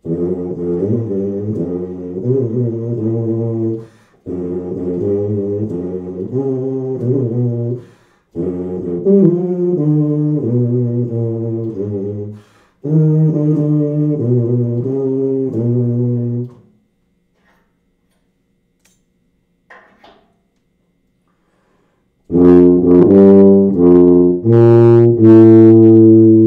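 Tuba played with a paper clip in the lead pipe holding the mouthpiece slightly off centre, which adds resistance to the buzz: four short phrases of changing low notes, a pause, then a louder phrase near the end. The last phrase's extra resonance overloads the microphone.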